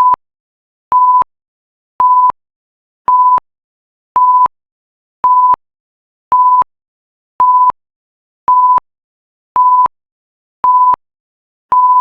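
Electronic timer alarm beeping: short single-pitch beeps, about one a second, signalling that the 15-minute countdown is up.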